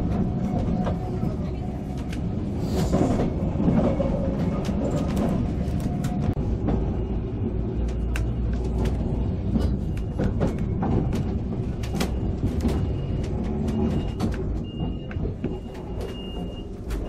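Vintage electric tram running on its rails, heard from on board: a steady low rumble with frequent clicks and knocks from the wheels and fittings, and a thin steady whine in the last few seconds.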